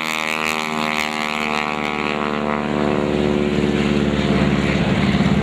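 Stearman biplane's radial engine and propeller passing by, the engine note falling slowly in pitch over the first few seconds, then turning rougher and a little louder near the end.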